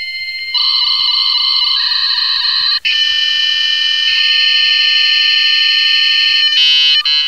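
Dial-up modem connecting: the handshake screech of steady electronic tones that shift in steps every second or two, breaking into a fast warble near the end.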